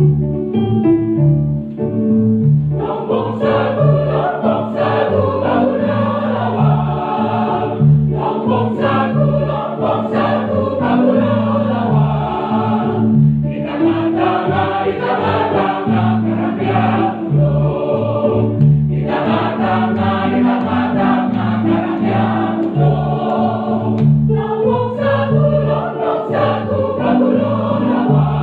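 Choir singing a medley of Minangkabau songs over an instrumental accompaniment with repeating bass notes. The voices come in about three seconds in and sing in phrases with short breaks between them.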